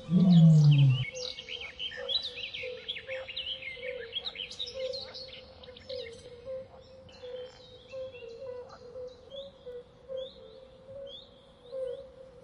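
Forest ambience of many small birds chirping and twittering over a steady, pulsing low drone. It opens with a short, loud low rumble in the first second.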